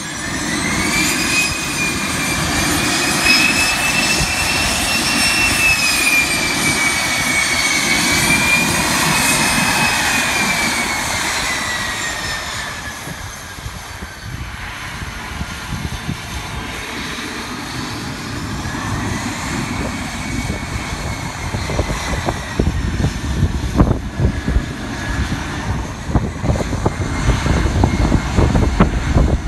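Twin Pratt & Whitney Canada PW545 turbofans of a Cessna Citation Excel (560XL) business jet whining as it taxis, the high whine drifting up and down in pitch and fading about halfway through. Over the last several seconds a deeper, ragged rumble builds as the jet lines up on the runway facing away.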